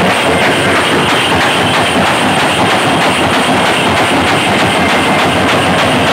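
A group of drummers beating large drums in a fast, dense, unbroken rhythm, loud and steady.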